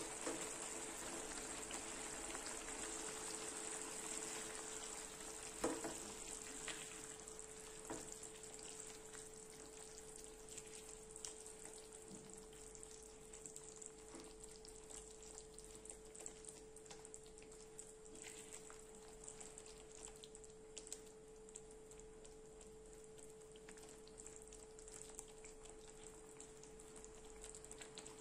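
Food sizzling in a frying pan, the sizzle slowly dying down, with a few sharp knocks, the loudest about six seconds in, and a steady hum underneath.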